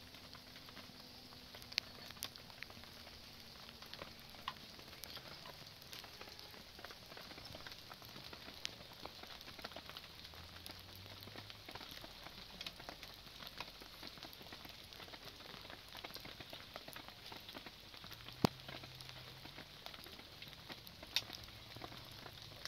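Steady rain pattering, with scattered sharp crackles and pops; one pop about 18 seconds in stands out as the loudest.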